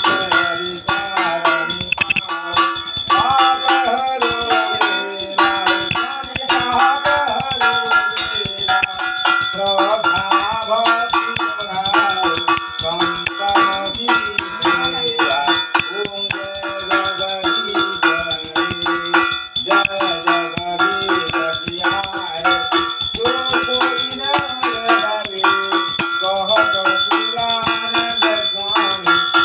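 Small brass puja hand bell rung rapidly and without pause for the aarti, its ringing steady throughout. Music with a melody plays under it.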